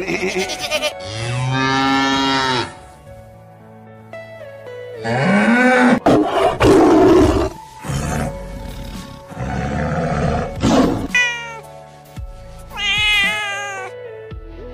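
Several animal calls in turn over background music: a long, low livestock call early on, then lions roaring, then a cat meowing several times near the end.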